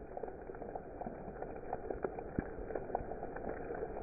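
Heavy rain with hail beating down on wet ground and leaves: a steady hiss of rain broken by many sharp ticks of hailstones striking.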